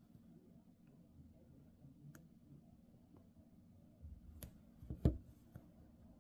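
Faint, scattered clicks of a seam ripper cutting the stitches of a jeans zipper, with a single louder thump about five seconds in.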